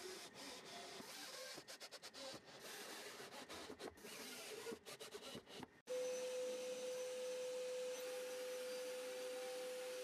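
Faint, uneven handling noise with abrupt dropouts, then, about six seconds in, the MPCNC's router spindle starts and runs with a steady, even whine while it drills T-nut holes into the MDF sacrificial plate.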